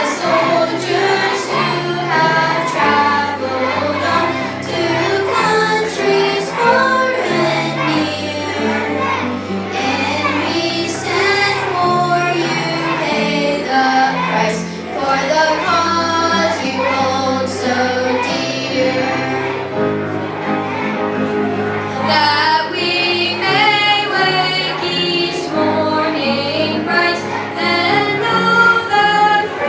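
Children's choir singing with instrumental accompaniment, sustained bass notes under the sung melody.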